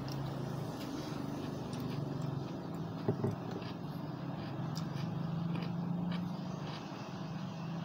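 Steady low engine hum, as of a motor vehicle running nearby, swelling slightly about five to six seconds in; a short sound stands out about three seconds in.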